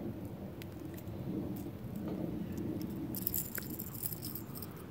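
Light metallic jingling and clicking from a fishing lure's hooks as it is worked free of a small spotted bass's mouth, a few ticks at first and then a dense jangle about three seconds in, over a steady low rumble of wind on the microphone.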